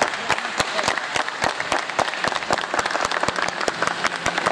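Spectators clapping, with many sharp claps a second, and voices calling out beneath.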